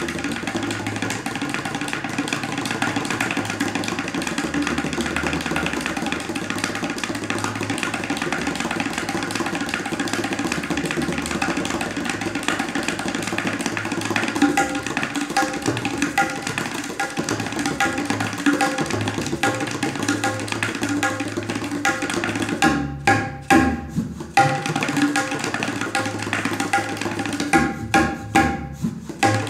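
Tabla solo in teentaal: fast, unbroken strokes on the dayan with deep resonant bass strokes from the bayan. Twice near the end the stream breaks into a few separate loud strokes with short gaps between them.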